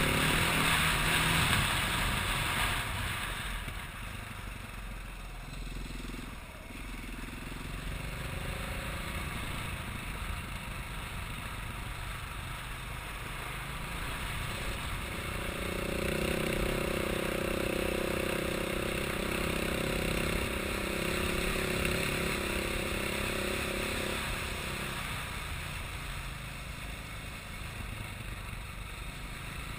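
An engine running under a steady rushing noise. A steady pitched drone comes in about 16 seconds in and stops about 25 seconds in.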